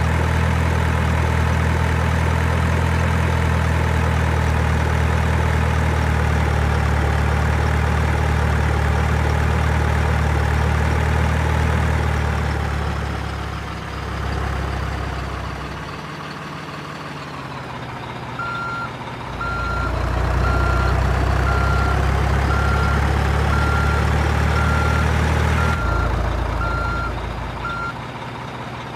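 Simulated diesel truck engine sound from an RC truck's sound module, a steady low drone that fades down about halfway and comes back. A reversing beeper sounds about once a second for some ten seconds in the second half.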